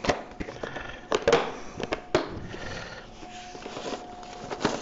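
Plastic tackle boxes and gear being handled and a bag rummaged through: a few sharp clacks and knocks, about a second apart early on, amid rustling.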